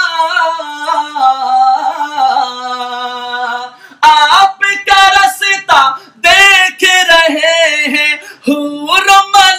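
A man singing a naat, a devotional song in praise of the Prophet, unaccompanied. He holds one long note that steps down in pitch, breaks off briefly about four seconds in, then goes on with ornamented, wavering phrases.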